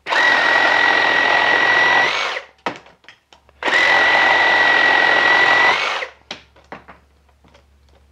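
Milwaukee M18 Fuel Super Sawzall reciprocating saw cutting through a wooden post at speed 5 with the orbital action off, in two steady runs with a constant whine. The pitch lifts slightly as each cut ends. Short knocks sound in the pause between the cuts and after the second.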